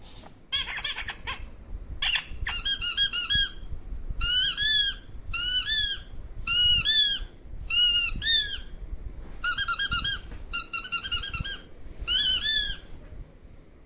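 High-pitched squeaks in about ten short runs of quick squeaks, each run under a second long with short pauses between; every squeak rises and falls in pitch.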